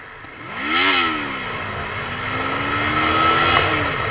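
Suzuki GS500's air-cooled parallel-twin engine under way: the revs rise and fall about a second in, then climb steadily in pitch for about two seconds and drop off near the end.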